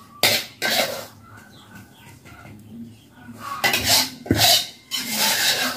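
Hands working a fish on banana leaves, making irregular bursts of rustling and scraping with light clinks of a utensil: two short bursts early, then a longer run of them in the second half.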